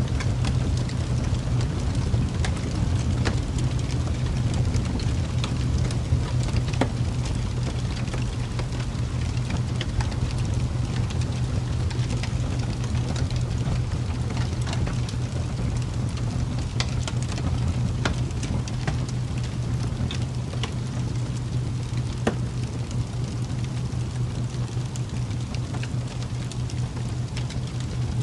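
Ambient crackling-fire sound: a steady low rumble with scattered sharp crackles and pops.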